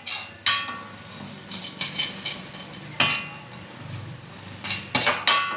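A metal spoon stirring and scraping in an aluminium kadai, knocking against the pan in sharp, briefly ringing clinks about half a second in, at three seconds and several times near the end. Crushed garlic and ginger fry faintly in coconut oil underneath.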